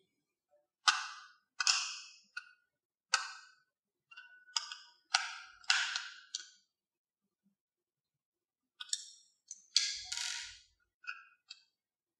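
Sharp clicks and taps of a screwdriver and screws against the plastic housing of a small in-line dimmer/switch as the four back-cover screws are undone: about eight clicks in the first six seconds, a pause, then a few more near the end.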